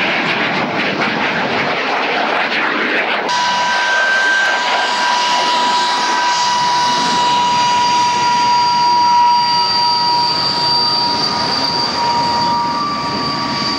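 A T-33 jet trainer flying past with a rushing jet roar. About three seconds in, the sound changes abruptly to a taxiing de Havilland Venom, its de Havilland Ghost turbojet giving a steady high whine in several tones, one of which slowly falls in pitch.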